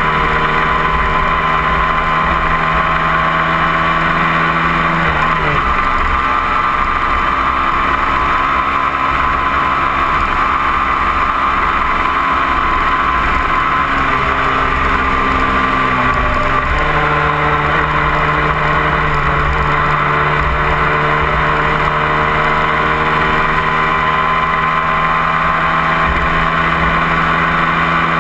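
Motorcycle engine running steadily at highway speed, heard close from a camera on the bike, with constant wind rumble. The engine note drops in pitch about five seconds in and rises again about seventeen seconds in.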